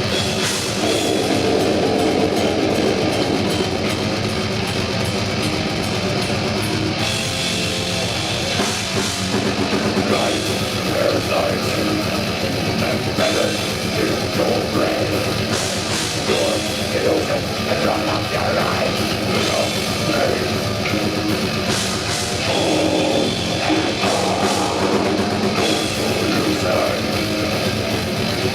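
Heavy metal band playing live: distorted electric guitars over a drum kit, loud and dense, with the sound filling out about seven seconds in.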